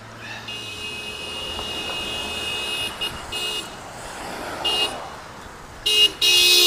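A horn sounding: one long blast of about two and a half seconds beginning half a second in, then three short toots, then a louder, longer blast starting near the end. Traffic and road noise run underneath.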